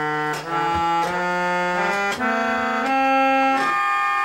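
A simple tune played on an electronic keyboard with an organ-like voice: held notes and chords that step to a new pitch about every half second to second.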